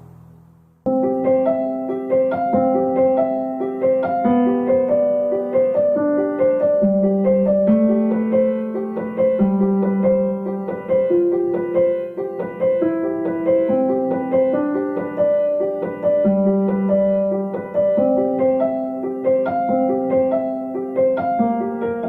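Instrumental piano music: a steady pattern of repeated notes over held lower notes, coming in suddenly about a second in after a fading low drone.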